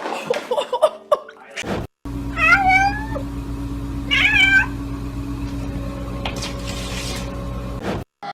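Domestic cat meowing twice, two drawn-out calls about two seconds apart, over a steady low hum.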